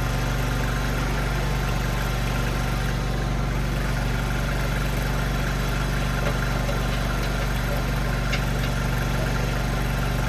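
Mini skid steer's engine running steadily at an even, unchanging pitch.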